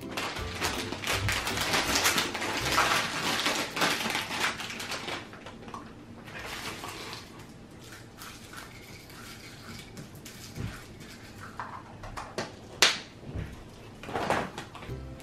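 Crinkly plastic rustling for about five seconds, then quieter handling with small clicks as plastic Easter eggs are opened, filled with candy and snapped shut, including one sharp click near the end.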